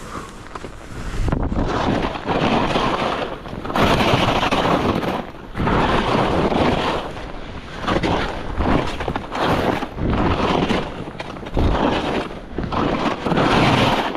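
Skis scraping and carving through firm, uneven spring snow, one turn after another about every two seconds, with wind buffeting the microphone.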